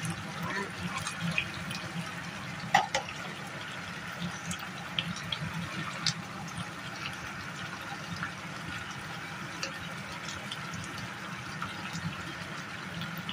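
Thickened braising sauce of beef ribs simmering in a frying pan: a steady bubbling hiss with scattered small pops, and one sharper click about three seconds in.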